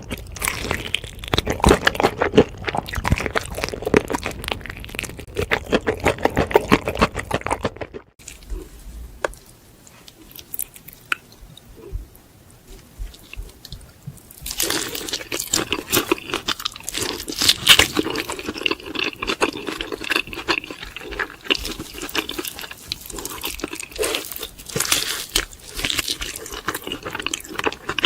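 Close-miked crunching and chewing of crispy fried chicken, a dense run of crackling bites. About eight seconds in it drops abruptly to softer chewing, and the loud crunching returns about halfway through.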